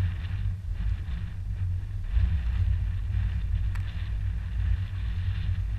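Wind buffeting the microphone: a steady low rumble that swells and dips with the gusts of a 15 to 18 knot breeze.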